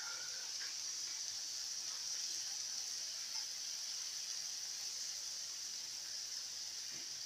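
Minced beef, onions and carrots sizzling steadily in a frying pan with water just added, a constant even hiss.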